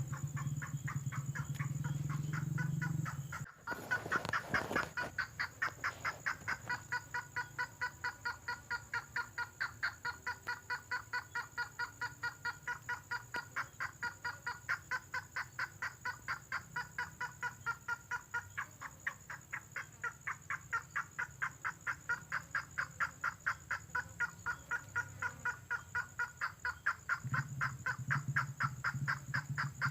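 Lure recording of the tengkoah merah bird: a long, steady run of repeated calls, about three a second. A low hum sits under the calls at the start and comes back near the end.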